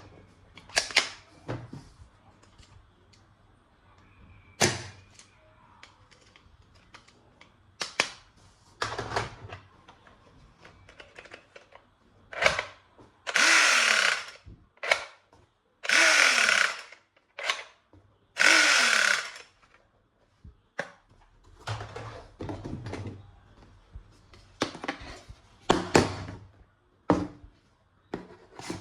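Plastic toy guns being handled, with scattered clicks and snaps, and three loud buzzing bursts of about a second each in the middle, each starting with a falling tone.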